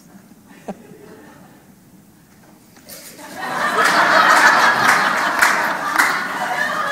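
Theatre audience laughing: after a quiet pause with a single soft knock, the laughter breaks out suddenly about three seconds in and stays loud.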